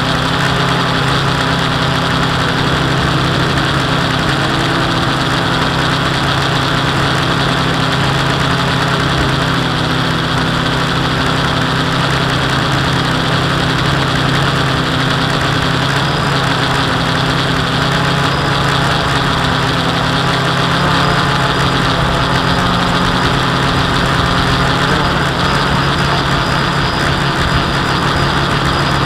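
Quadcopter's electric motors and propellers droning steadily in flight, heard from a camera on the aircraft, the pitch holding nearly even throughout.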